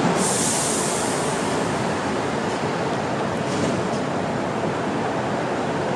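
Steady rushing background noise, with a brief brighter hiss in the first second.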